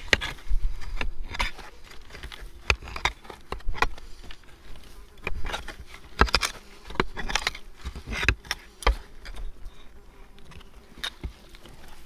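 Hand digging fork stabbing and scraping through packed privy soil and debris in irregular sharp strokes, with a faint steady hum beneath.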